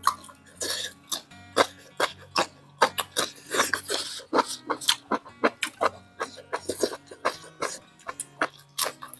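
Close-miked eating: chewing and mouth smacks broken by short coughs and sharp breaths, as from the burn of a hot chili, several sharp sounds a second. Soft background music runs underneath.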